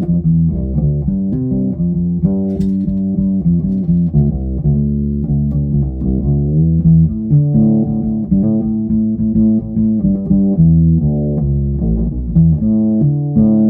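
Ibanez SRH505F five-string fretless acoustic-electric bass playing a run of plucked notes, ending on a held, ringing note. The tone knob is rolled all the way back, giving a dark sound with little top end.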